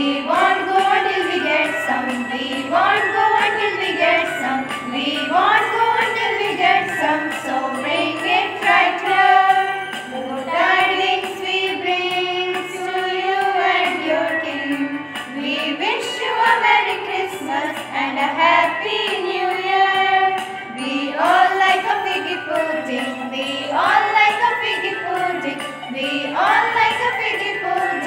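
A Christmas song playing: sung vocals carrying a melody over a steady backing with a light regular beat.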